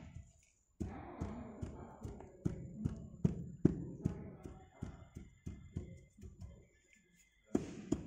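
Hand rammer striking moulding sand in a moulding box, a run of dull thuds about two a second as the sand is packed down, with short pauses.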